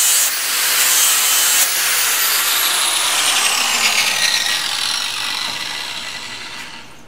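Electric grinder grinding the mill scale off a steel plate. About two seconds in, its whine starts falling steadily and the sound fades as the disc spins down.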